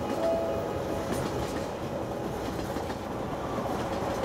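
Passenger train running along the track: a steady rumble of wheels on the rails.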